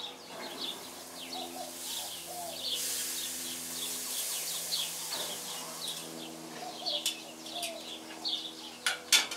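Small birds chirping over and over, while meat sizzles on a hot gas grill for a few seconds in the middle as the lid is up and the pork loin is turned. Metal tongs and the grill lid clank near the end, the loudest sounds, over a steady low hum.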